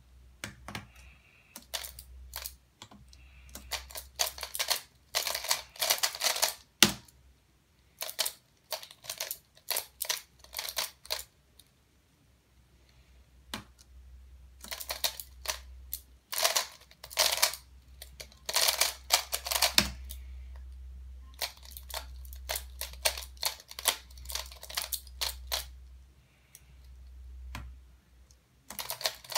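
Aoyan Skewb puzzle being turned fast by hand, giving runs of rapid plastic clicking: scattered turns in the first ten seconds or so, then a dense run of about five seconds from a speed-solve, with a few laptop key taps between. A low steady hum runs underneath.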